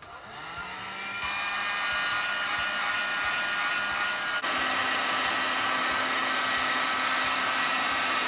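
Heat gun switched on and blowing, shrinking heat-shrink tubing over an alligator clip's crimped wire: its fan spins up with a rising whine, then settles into a steady rush of hot air. About four seconds in the tone shifts slightly with a click, and the gun stops abruptly.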